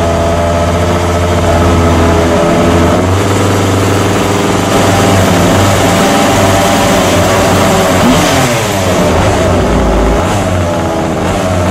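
Small petrol two-stroke engine of a 1/5-scale MCD rally RC car running, with a steady idle for about three seconds, then the throttle blipped again and again, the pitch rising and falling.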